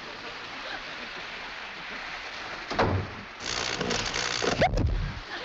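Explosion sound effect as dynamite blows up part of an O gauge model train layout: a sharp thump about three seconds in, then about a second and a half of loud blast noise with a low rumble, ending in another thump.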